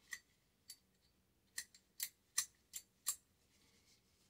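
Sharp metal-on-metal clicks of an AR-15 bolt carrier group being handled in gloved hands, its parts clicking against each other; about eight clicks, the loudest between about two and three seconds in.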